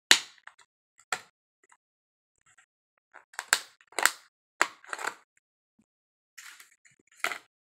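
Clear plastic deli cups and lids being handled: a series of sharp plastic clicks and crackles, the loudest right at the start, with a cluster around the middle and a couple more near the end.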